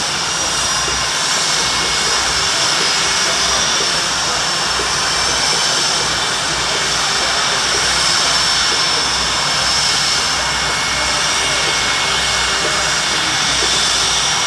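Aircraft engine running steadily and loudly, with a continuous high-pitched whine over a dense rush of noise.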